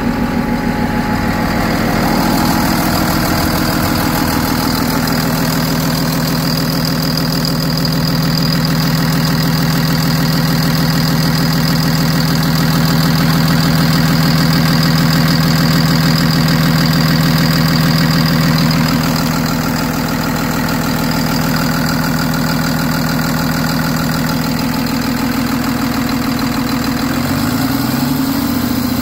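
2011 Cummins ISB 6.7-litre inline-six turbodiesel idling steadily, heard close up with the hood open. Its pitch rises slightly near the end.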